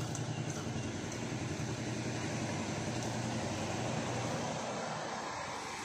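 A steady low engine drone over a constant hiss, easing off near the end.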